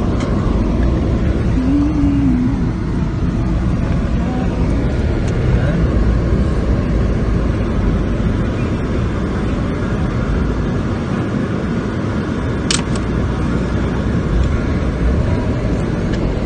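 Steady rumble of a car driving, with one sharp click about twelve seconds in.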